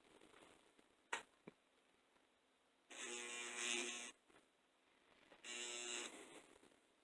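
Two light clicks, then two short electric buzzes of about a second each from an N scale locomotive's small motor as power is applied on the track.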